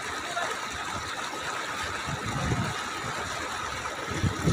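Water rushing and churning as it pours over rocks, a steady, even rush.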